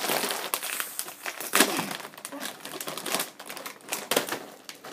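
Plastic snack bag of baked shrimp chips crinkling and crackling as it is tugged and pulled open, in irregular sharp crackles, the loudest about a second and a half in.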